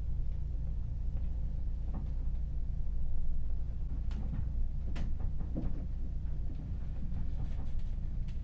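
Steady low rumble of a car ferry's engines and hull, heard inside a passenger cabin, with scattered light clicks and knocks from the cabin fittings as the ship moves through high waves.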